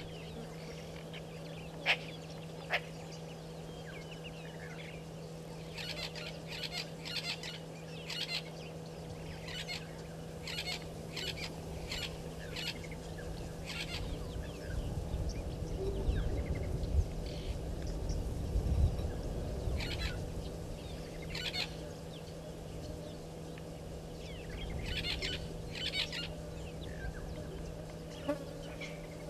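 Wild birds calling in short, repeated notes, in several separate bouts, over a steady low hum. A low rumble swells and fades in the middle.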